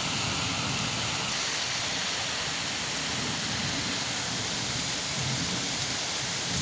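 Steady rain falling, an even hiss with a little low rumble underneath.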